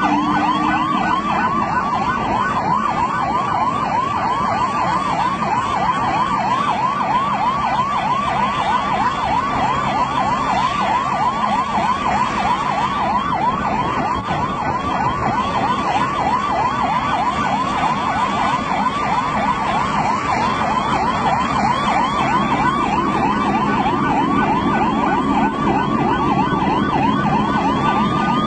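Ambulance siren wailing in a fast yelp, several rising-and-falling sweeps a second, over a low rumble; near the end it switches to a steady higher tone.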